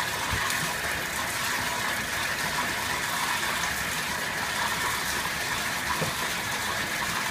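Water running steadily into a bathtub from the tap, an even rushing hiss with no pauses.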